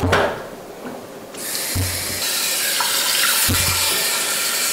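A brief knock, then about a second and a half in a pull-down kitchen faucet sprayer turns on and water runs steadily into an enamelled cast-iron pot.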